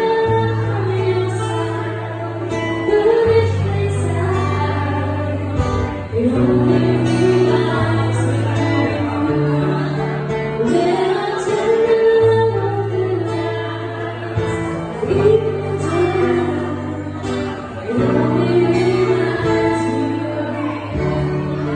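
A woman singing live into a microphone with guitar accompaniment over held low bass notes.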